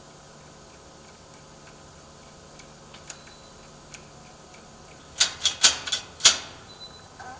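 A few faint ticks, then about five seconds in a quick run of five loud, sharp metallic clicks and knocks from the security door's hardware being worked.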